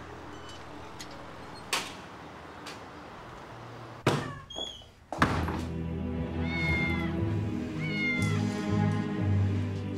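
Background music under a door thudding and banging open about four to five seconds in, then a cat meowing twice, each a short falling call.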